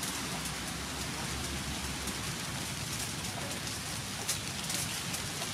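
Steady, even hiss of outdoor background noise, with a faint tick about four seconds in.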